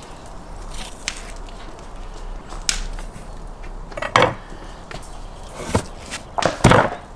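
Knocks and thuds of a knife and a whole lamb carcass against wooden cutting boards as the carcass is butchered and handled. There are a few scattered knocks, the strongest about four seconds in and again near the end.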